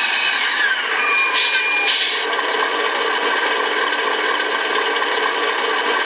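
Radio-controlled model truck's drive whirring as it slows to a stop, its whine falling in pitch over the first two seconds, then a steady mechanical hum.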